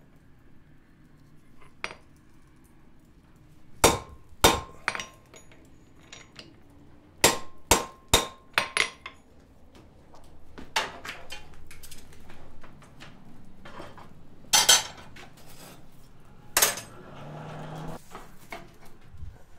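Hand-hammer blows cutting a red-hot 1/4 by 1 inch steel bar over a hardy cutter on the anvil: about ten sharp metal strikes in irregular groups, some leaving a brief ringing tone.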